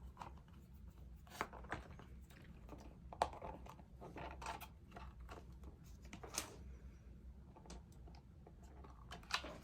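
Faint handling sounds of paper pieces being pressed and glued together: scattered light taps and rustles, with a sharper tick about three seconds in, over a low steady room hum.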